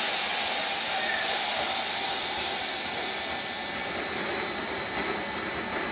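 Nishitetsu 6050-series electric train starting to pull out: a steady hiss of air that began just before, with motor and wheel rumble building toward the end as it gets moving.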